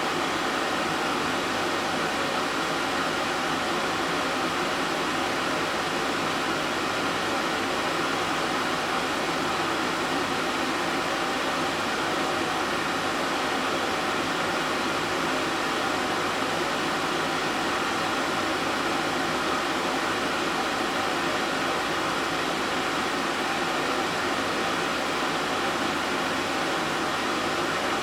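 Steady, even rushing noise with a faint hum and no distinct events, of the kind made by an air conditioner or fan running.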